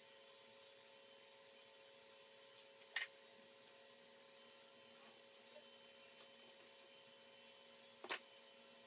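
Near silence with a steady faint hum, broken twice by short sharp clicks, about three seconds in and again about eight seconds in: hand tools knocking against the engine while the water pump bolts are being undone.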